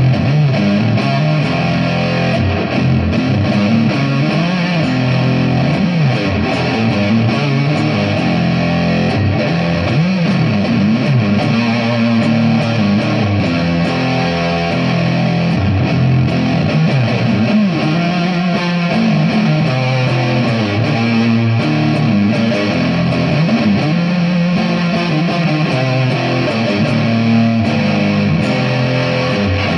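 Electric guitar played continuously with some distortion, notes bending in pitch, with no pause.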